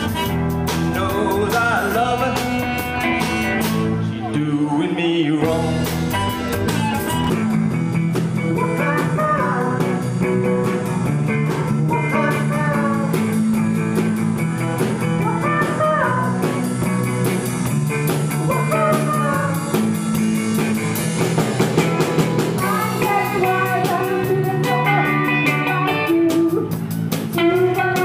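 Electric blues band playing live: electric guitar, bass guitar and drum kit. The music breaks off briefly about five seconds in and picks up with another number.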